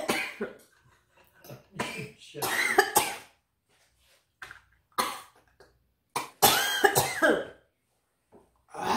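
A woman coughing in several fits, spluttering after tasting a potent jerk seasoning that catches her throat.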